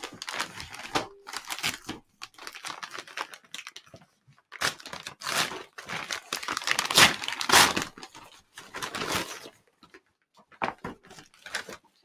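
Brown paper mailing bag being handled, crinkled and torn open, in irregular rustling bursts that are loudest and densest from about halfway through.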